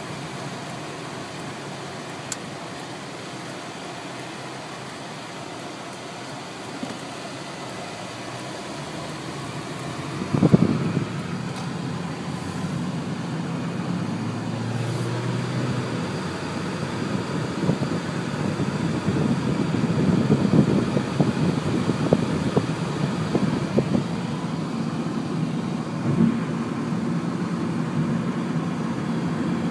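Wind and car noise: a steady rush of wind with car engine and road sound under it, and one sudden thump about ten seconds in. In the second half the dust storm's gusty wind grows louder and buffets the microphone with a rough crackle.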